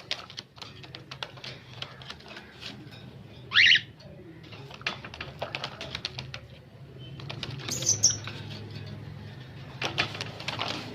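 Grey parrot giving one short rising whistle-call about three and a half seconds in and a brief very high squeak near eight seconds, amid scattered clicks and rustling.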